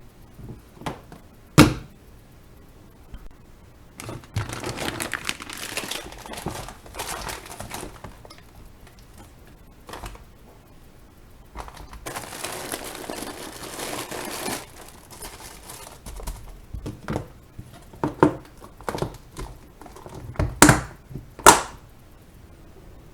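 Rustling and crinkling in two long stretches, with a few sharp knocks, one early and two close together near the end.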